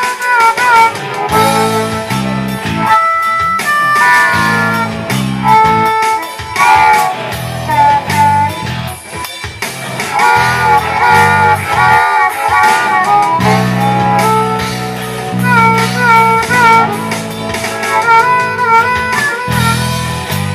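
Live band playing an instrumental break of a blues-rock song: a lead line of bending, wavering notes over guitar and a repeating bass line.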